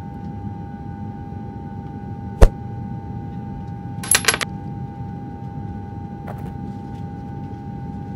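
Vending machine's steady electrical hum, with a single sharp click about two and a half seconds in and a brief metallic clinking about four seconds in.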